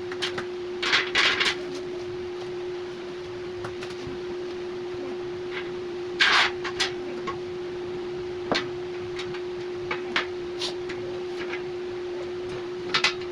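Steel rack parts clicking and knocking now and then as they are handled and fitted together, over a steady hum.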